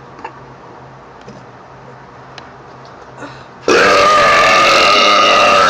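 A person's long, loud belch, held steadily at one pitch for about two seconds. It starts suddenly near the end, after a few seconds of quiet room tone with faint clicks.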